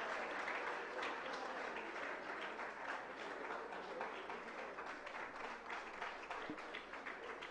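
Audience applause that gradually thins out and fades away.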